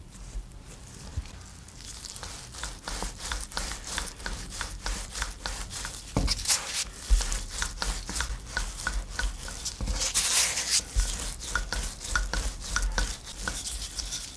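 Gloved hands working dough on a floured wooden board: rubbing and pressing with many small sticky clicks, and a few dull thumps about six, seven and eleven seconds in.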